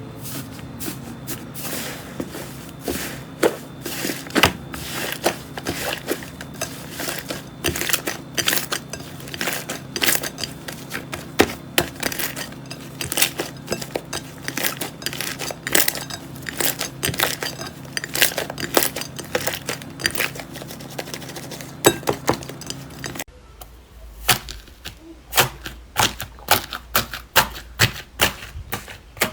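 Slime being squeezed and pressed by hand, giving many sharp crackles and clicks in quick succession. A low steady hum runs under it and stops abruptly about three-quarters of the way through, after which the crackling goes on.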